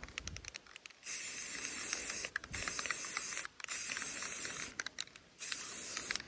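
Aerosol spray paint can spraying in three long spurts with short breaks between, after a quick run of ticks at the start; light touch-up passes over missed spots on a first coat.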